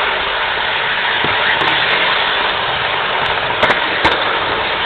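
Model train running along its track, heard from a camera riding on it: a steady rushing whir of motor and wheels, with two sharp clicks near the end as it passes over track joints.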